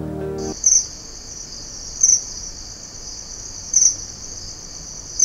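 A steady, high-pitched insect trill with louder pulses about every one and a half seconds. It starts about half a second in, just as a held music chord ends.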